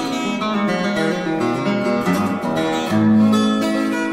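Background music: an acoustic guitar picking a tune.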